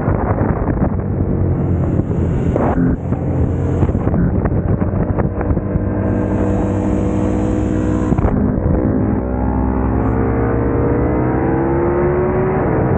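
Sport motorcycle engine at track speed, heard onboard, running under load, with brief breaks about 3 and 8 seconds in. Its pitch then climbs steadily toward the end as it accelerates.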